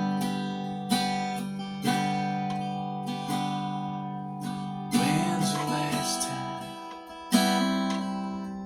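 Acoustic guitar strumming chords about once a second, each left to ring and fade, in an instrumental break of a slow country-style song.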